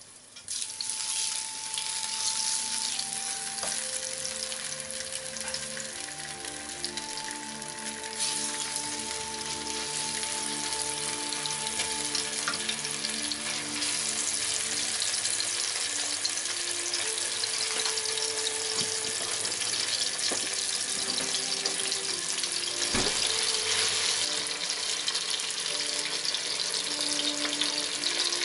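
Wasabi-coated pork neck steaks sizzling in hot olive oil with garlic in a frying pan, the hiss starting sharply about half a second in as the meat goes into the oil and getting louder about eight seconds in.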